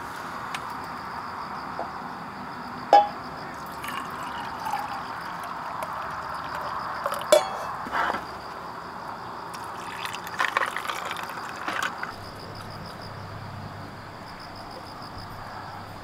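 Coffee poured from a tumbler over ice cubes in a stainless steel camping mug, with a few sharp knocks of metal cups on the table and light clinking of ice against the metal a few seconds later.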